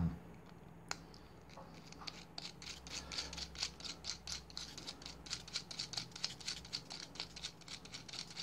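Small steel nut and washers being threaded by hand onto a 3 mm machine screw: quick, irregular metallic clicking and scratching, starting about two seconds in after a single click near the start.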